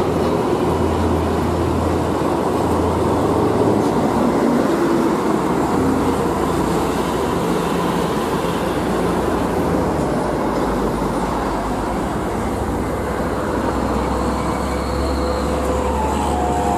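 Hino Ranger FG 235TH tractor unit's diesel engine running as it pulls away and drives past, amid other heavy road traffic.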